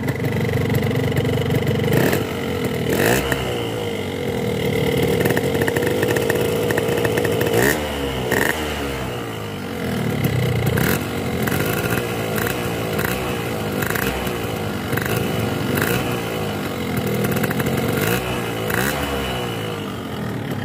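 Hot two-stroke motorcycle engine running through an aftermarket Boban C33 exhaust. It holds a steady note at first, then from about eight seconds in it is revved in short blips about once a second, the pitch rising and falling with each one.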